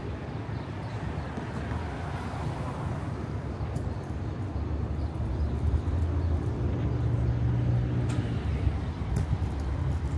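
City street traffic: a steady low rumble of passing cars, with a heavier engine hum swelling as a vehicle goes by about six to nine seconds in.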